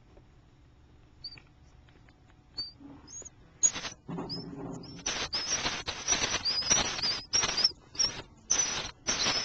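Baby birds chirping: a few faint, short high chirps, then from about four seconds in loud, raspy calls repeated about twice a second.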